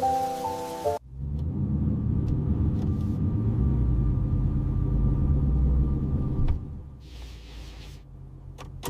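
Soft music cuts off about a second in and gives way to a low, steady rumble, which drops away to a faint hiss about six and a half seconds in.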